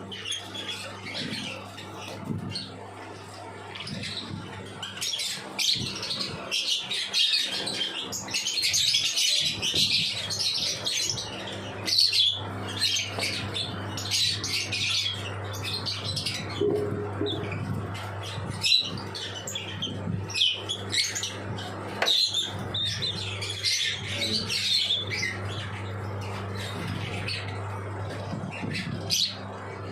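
Lovebirds chirping and squawking in dense, rapid high-pitched calls, over a steady low hum.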